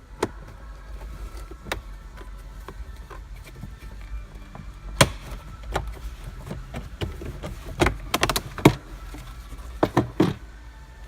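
Sharp clicks and knocks of plastic interior trim being handled and unclipped, scattered at first, then a quick run of them about eight seconds in and a few more near the end.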